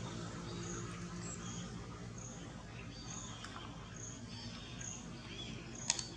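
Short high chirps repeating at an even pace, a bit faster than once a second, over a low steady hum, with a sharp click near the end.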